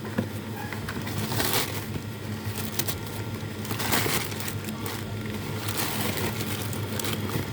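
A meat package being handled and turned over, with a few bursts of crinkling and rustling about one and a half and four seconds in. A steady low hum runs underneath.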